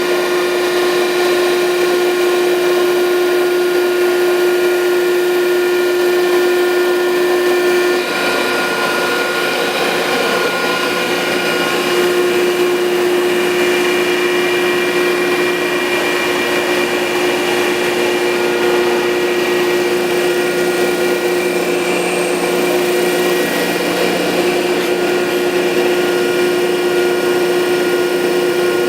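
Landis 1R universal cylindrical grinder running under power: a steady machine hum with a strong whine. The whine drops out about eight seconds in and comes back some four seconds later.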